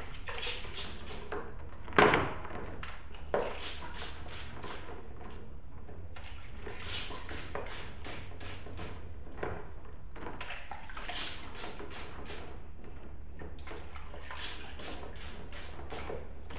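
Small brush scrubbing a wet chainsaw chain soaked in cleaning solution, in quick runs of scratchy strokes about three a second with short pauses between runs. A sharp knock comes about two seconds in.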